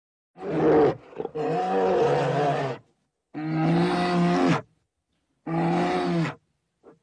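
An animal giving four separate, drawn-out, pitched calls, each lasting about half a second to a second and a half, with short silences between them.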